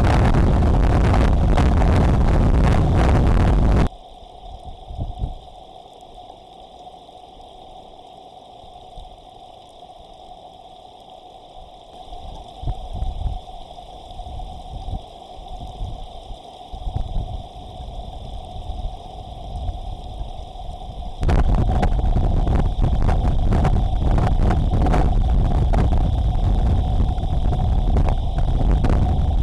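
Tropical-storm wind and heavy rain buffeting an outdoor camera's microphone as a loud, steady roar. About four seconds in it drops to a much quieter hiss with occasional gusts, then the loud roar returns about twenty-one seconds in. A faint steady hum sits underneath throughout.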